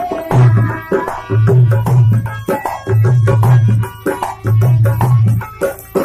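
Dholak drum played in a fast rhythm, with four spells of deep rolling bass strokes, over a harmonium's held notes: the instrumental passage of a Bhojpuri folk song.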